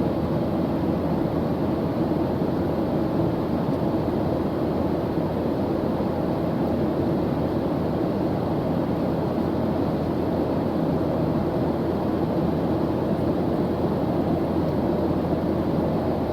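Steady airplane engine drone: an even, unchanging rushing noise, strongest in the low-middle range, with a faint steady hum running through it.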